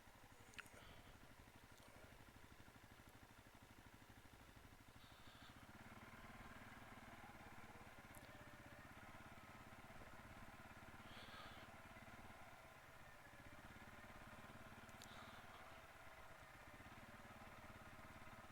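CFMOTO CForce 500 ATV's single-cylinder engine running steadily and faintly, with a few faint ticks.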